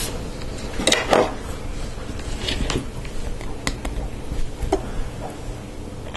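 Small LEGO Technic plastic parts (lift arms, pins and axles) clicking and clattering as they are handled and fitted together. A cluster of clicks about a second in is followed by a few scattered single ticks.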